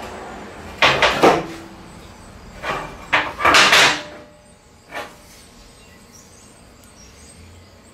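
Bursts of scraping and knocking as a bent steel hydraulic line is dragged, turned and lifted on a steel welding table, loudest between about three and four seconds in, with a last short knock about five seconds in.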